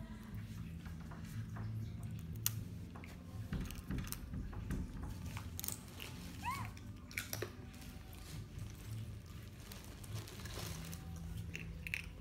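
Baby macaque biting and chewing a piece of crunchy food, with scattered small crunches and clicks over a low steady hum. A couple of short rising squeaks come about halfway through.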